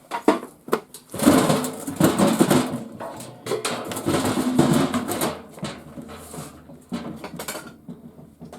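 Knocks and a stretch of dense rattling clatter as the metal and plastic parts of garage door openers are handled and moved, loudest from about one to five seconds in.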